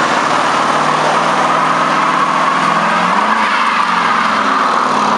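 1975 Chevrolet Camaro doing a burnout: the engine is held at high revs while the rear tyres spin and screech steadily on the asphalt. The engine note rises slightly about three seconds in.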